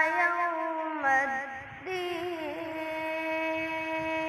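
A boy's voice in melodic Quran recitation (tilawat), drawing out long notes. A falling turn about a second in, a short breath, then one long steady held note.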